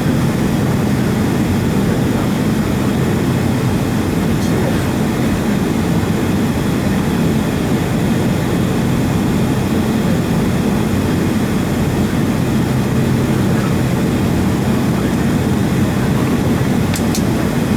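Steady low rumble of cabin noise inside a Boeing 757 airliner on the taxiway, its engines at idle. Two faint ticks are heard, one partway through and one near the end.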